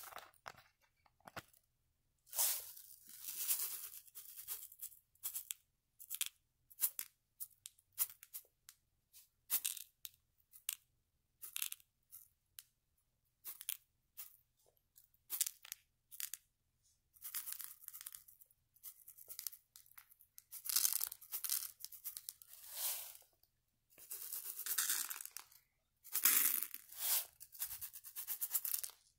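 Small foam beads shaken out of a plastic bottle and pattering onto papier-mâché, in many short irregular pours of a second or two each, with brief pauses between.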